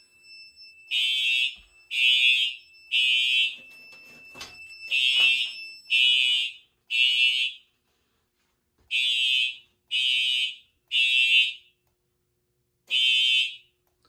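Simplex TrueAlert fire alarm horns sounding the temporal-3 evacuation pattern, set off by a smoke detector alarm: three loud high beeps about a second apart, a pause, then three more. A steady high tone sounds beneath the beeps and stops about six seconds in.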